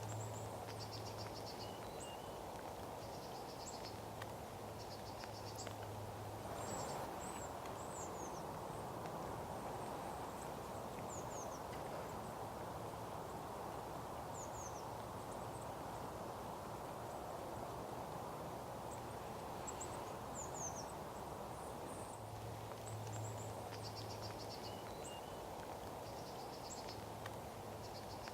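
Small woodland songbirds calling at intervals: thin, high, down-slurred notes and short rapid trills, over a steady background hiss and an on-and-off low hum.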